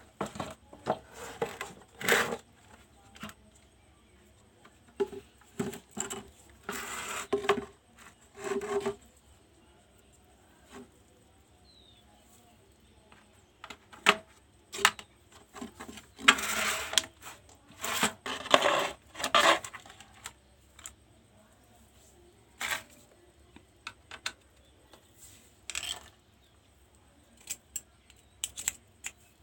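Irregular clicks, small metallic clatter and short scraping sounds of an induction cooktop being handled and taken apart, with longer scraping bursts about seven seconds in and again around sixteen to nineteen seconds in.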